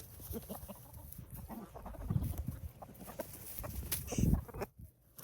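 Chickens clucking among scattered knocks and rustles, with a louder thump about four seconds in.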